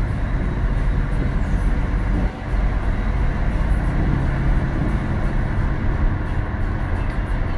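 A car driving in city traffic: a steady low rumble of engine and road noise, with engine tones shifting in pitch and a short drop in level about two seconds in.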